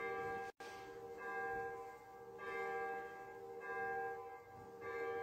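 Church bell tolling, a stroke about every 1.3 seconds, each one ringing on into the next, with the sound cutting out briefly about half a second in.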